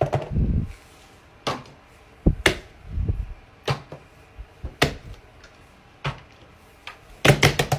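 Small objects being handled: scattered sharp clicks and taps about a second apart, with a few dull thumps, and a quick run of clicks near the end.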